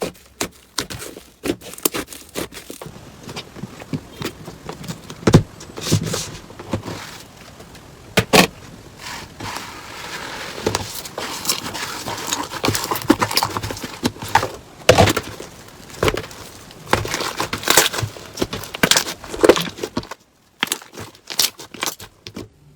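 Slime being squeezed and pressed by hand close to the microphone: a dense run of sticky pops, clicks and crackles, with a brief pause about twenty seconds in.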